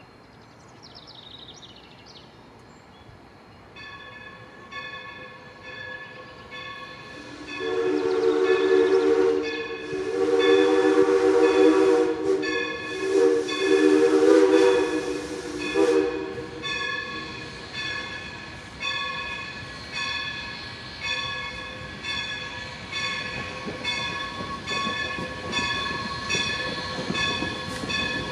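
New Hope & Ivyland No. 40, a 2-6-2 steam locomotive, blows its chime whistle in the grade-crossing signal of long, long, short, long, over its bell ringing about once every 0.7 s. The rumble of the approaching engine grows louder near the end.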